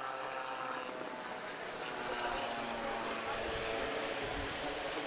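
AutoGyro MTOsport autogyro in flight, its pusher-propeller engine giving a steady drone that grows slightly louder.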